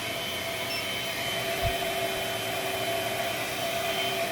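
Hoover ONEPWR Blade cordless stick vacuum running steadily on its low setting: a constant motor whine over rushing airflow. There is a soft low thump near the middle.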